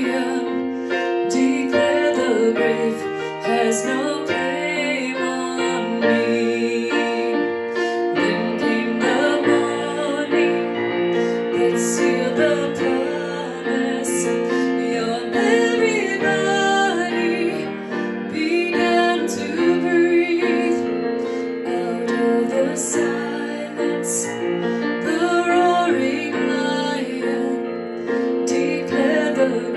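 A woman singing a slow worship song, accompanying herself on the piano.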